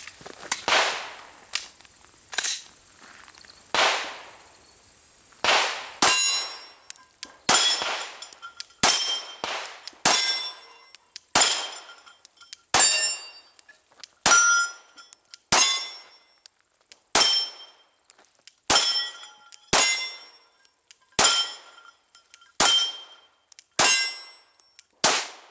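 Glock 19 9mm pistol fired in a slow, steady string, each shot followed by the clang of the bullet striking a steel target. A few spaced shots come first, then about one shot every second and a half from about six seconds in, the steel ringing after many of them.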